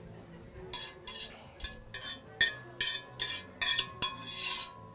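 A metal spoon scraping and knocking corn kernels out of a stainless-steel strainer into a blender jar: a quick series of short scrapes and clinks.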